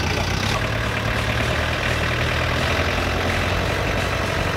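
Forklift engine running steadily at a low, even speed.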